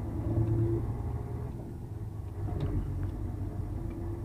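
Heavy truck's diesel engine and tyre noise heard from inside the cab while driving on a rough unpaved road: a low rumble with a steady hum that fades in and out.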